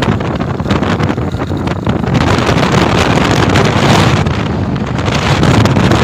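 Heavy wind buffeting the microphone on a moving motorbike, with the bike's running and road noise underneath.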